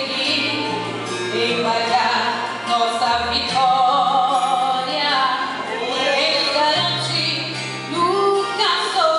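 A woman singing a gospel praise song into a microphone, her voice wavering with vibrato, over an accompaniment of long held bass notes that shift pitch every few seconds.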